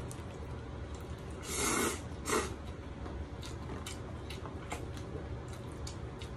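A person slurping cold sesame-sauce noodles: one longer slurp about one and a half seconds in, then a shorter one just after, with faint clicks scattered around them.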